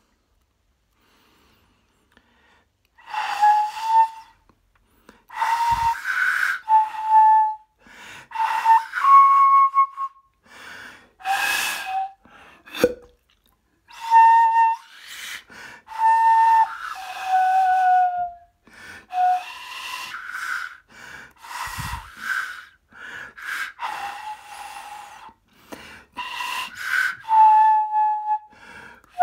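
Disassembled soprano flute blown into the open end of its keyed body: short, airy, breathy notes and phrases with much air noise, some notes sliding down in pitch, separated by short pauses. A sharp click sounds about halfway through, with low thuds near the start and two-thirds of the way in.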